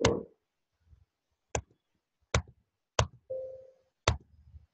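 Sharp single clicks of a computer mouse or keyboard, five in all, spaced roughly a second apart, as the Find button is pressed again and again. A short steady hum-like tone sounds briefly after the fourth click.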